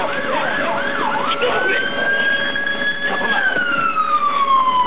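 Emergency vehicle sirens: a fast yelp of quick up-and-down sweeps in the first second, then a long wail that rises, holds steady, and slowly falls in pitch.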